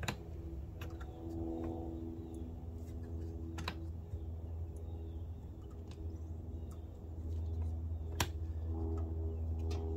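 A few sharp plastic clicks as the controls on a Predator 3500 inverter generator's panel are worked by hand, over a low steady hum.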